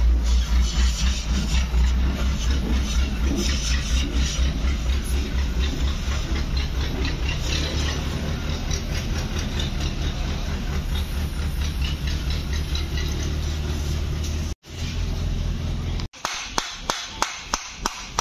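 Gas torch flame running with a steady low rumble and hiss while it is played into a Tata BS6 silencer's canister to burn it clean. Near the end it cuts off, and quick sharp knocks follow, about three a second, as a metal tool chips out the silencer's crumbled white ceramic core.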